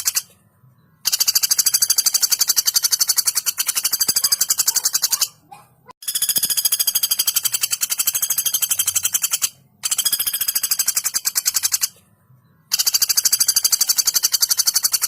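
Female common flameback woodpecker giving its fast, dry rattling call in long bouts of two to four seconds, about five bouts with short pauses between them.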